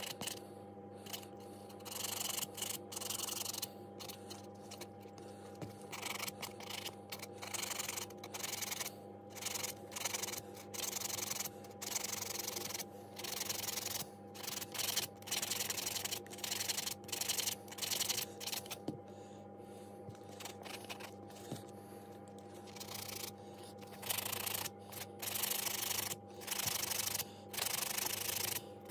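Sanding sponge rubbing back and forth over the wooden handle of an old brass clock winder, in runs of quick scratchy strokes broken by short pauses, sanding back a finish that is about to be varnished.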